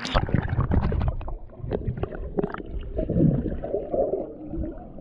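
Stream water sloshing and gurgling close to the microphone, with a run of sharp knocks and splashes in the first couple of seconds and a low rumble throughout.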